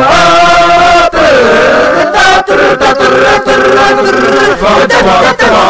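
Wordless a cappella singing by one voice layered into several parts, imitating a marching band's music, with several sustained pitches held together like brass chords.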